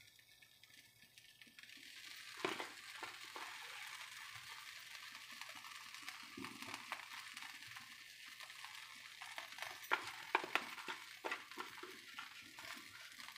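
Faint light taps and soft clicks of shredded cheese being sprinkled by hand onto a pizza in a frying pan, over a steady faint hiss that comes in a couple of seconds in. A small cluster of taps comes near the end.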